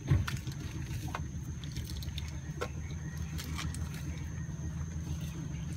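Boat motor idling low and steady, coming in with a thump at the start, under a thin steady high whine and a few scattered faint clicks.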